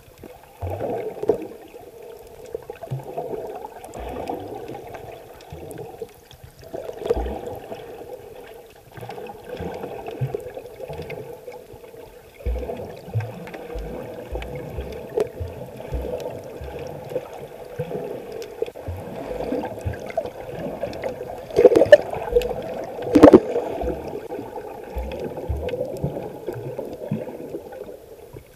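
Underwater sound picked up by a camera held below the surface: a muffled, gurgling wash of water and bubbles with scattered low thuds. Two sharp clicks about one and a half seconds apart near the end are the loudest events.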